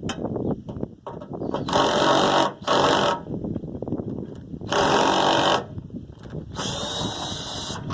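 Power drill-driver with a T30 Torx bit running in four short spurts, backing out the screws of a pickup's tailgate latch panel, with light rattling between spurts.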